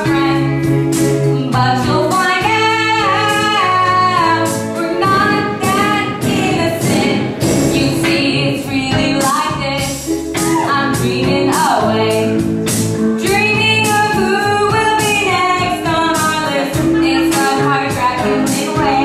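Girls singing a stage song together over an accompaniment with a steady beat.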